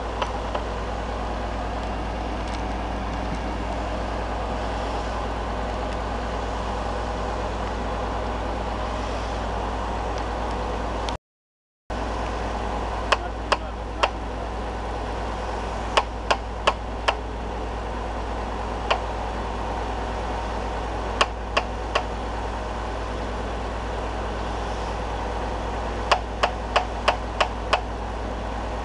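Core drilling rig's engine running steadily, with short runs of sharp metallic taps as the core barrel's inner tube is knocked to free the core. The sound cuts out for a moment about eleven seconds in.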